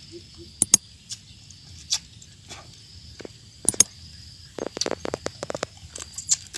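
Boiled crab shells being cracked and pulled apart by hand and bitten: separate sharp cracks and crunches, with a quick run of them around five seconds in. A steady high insect chirring carries on underneath.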